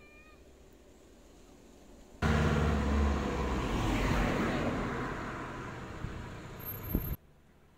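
A motor vehicle's engine and tyres on a road, starting suddenly loud about two seconds in and slowly fading, then cutting off abruptly near the end.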